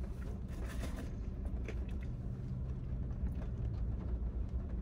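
Low steady rumble inside a car cabin, with a few faint taps and rustles as fried chicken tenders are handled.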